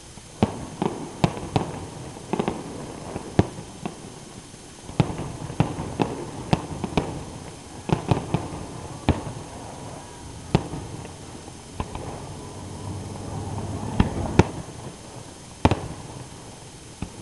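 Aerial fireworks shells bursting: about twenty sharp bangs at irregular intervals, some in quick clusters, over a low rumble.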